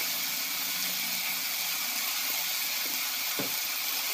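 Meat and tomatoes sizzling in hot oil in a metal pot, a steady hiss, with one light knock a little over three seconds in.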